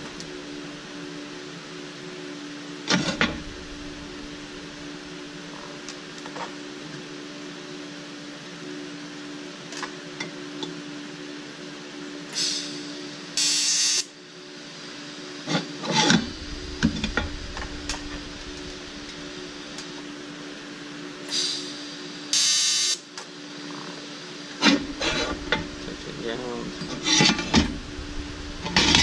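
Steady electrical hum of a TIG welding setup, with scattered knocks of metal being handled and two short bursts of hiss about halfway through and again a little later, as from brief TIG arc strikes.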